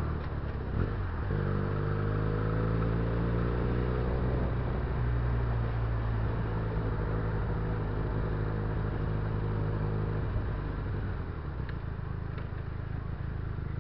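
Benelli TNT300/BN302 300 cc parallel-twin motorcycle engine pulling in gear, its note rising a little over the first few seconds and then holding steady. About ten seconds in the throttle closes and the engine note falls away, leaving a steady rush of road noise.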